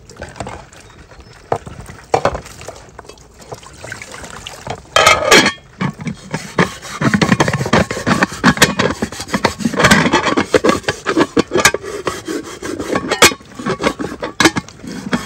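Busy handling noise of hard objects: scattered knocks at first, then from about five seconds in a dense run of clinks, knocks and scraping.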